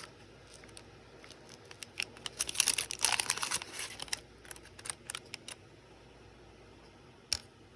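Small packaging crinkling as tiny items are handled, with scattered light clicks and taps; the crinkling is densest about a third of the way in, and one sharp click comes near the end.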